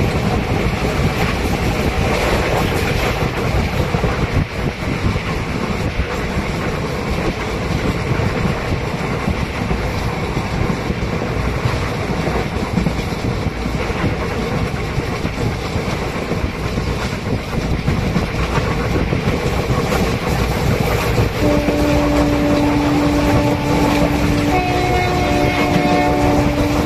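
Train running at speed, heard from on board: a steady rumble and rushing noise. In the last five seconds a horn sounds in long, steady blasts with short breaks between them.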